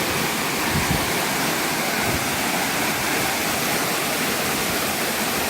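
Waterfall of snow-melt water rushing in a steady, even roar of falling water.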